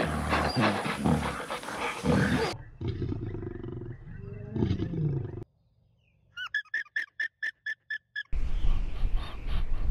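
A string of animal calls cut one after another. First come loud harsh calls for about two and a half seconds, then a lion's low growling roar for a few seconds. After a short silence there is a fast run of about a dozen short high-pitched calls, then a noisy stretch with a low rumble near the end.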